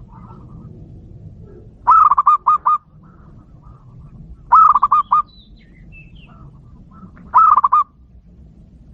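Zebra dove (perkutut) cooing: three bursts of its quick, stuttering run of coos, each under a second long, spaced about two and a half seconds apart. Faint higher chirps sit between the second and third bursts.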